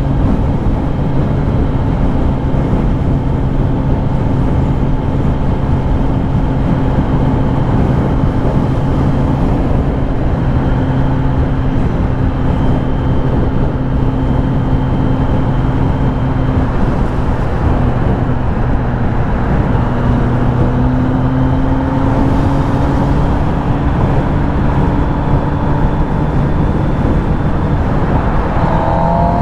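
Kawasaki Ninja ZX-10R inline-four running at a steady cruise under a heavy rush of wind and road noise. The engine note rises gently from about two-thirds of the way through, then climbs quickly near the end as the revs pick up.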